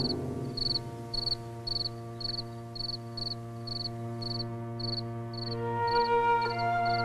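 Cricket chirping steadily, about two short high chirps a second, over a held chord of background music; a melody begins near the end.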